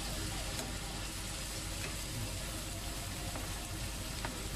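Cauliflower and baby corn sizzling steadily as they fry in a non-stick pan, stirred with a wooden spatula, with a few light taps of the spatula against the pan.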